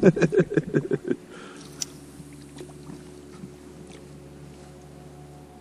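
A small boat motor running at a steady, even hum, with one sharp click about two seconds in.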